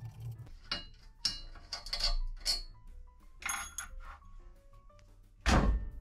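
Metal clinks and knocks as screws and a screwdriver strike a steel stair frame, several sharp strikes in the first few seconds, then a heavy knock about five and a half seconds in as the frame is lifted. Background music plays underneath.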